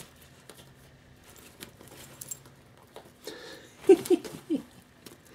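A cat scrabbling in a fabric play tunnel, its nylon rustling with soft scratches and light crackles. A brief burst of a person's voice comes about four seconds in.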